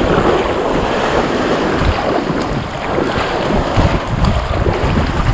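Wind buffeting the microphone over choppy sea, with water sloshing and splashing around the kayak.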